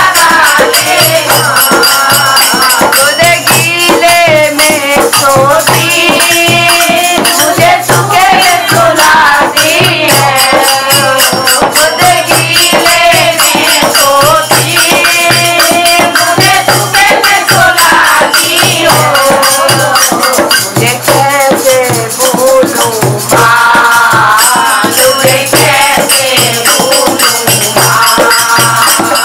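Dholak drum played in a steady bhajan beat, with a constant fast rattle of hand percussion and a wavering melody line over it.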